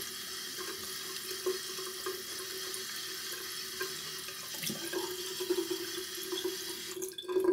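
Bathroom tap running into a sink while cold water is splashed onto the face to rinse it after a shave. The flow stops near the end.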